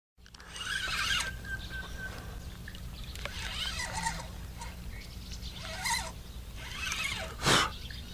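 Outdoor birds chirping and calling in short bursts over a steady low hum, with one sharper, louder call or splash about seven and a half seconds in.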